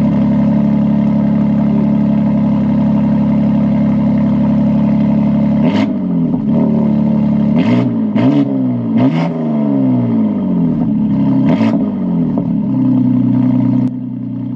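BMW X3 M Competition's tuned S58 twin-turbo inline-six running steadily, then revved hard several times, each rev rising and falling in pitch with a sharp peak, before it settles back down near the end. The exhaust valves have just been opened.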